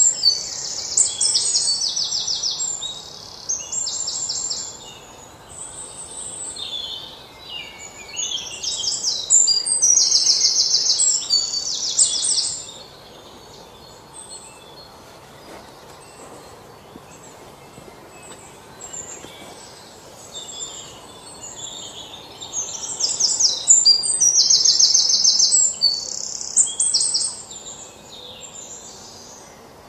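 Small birds chirping and twittering in rapid high trills. The chirping comes in loud spells a few seconds long, about three times, with softer chirps between.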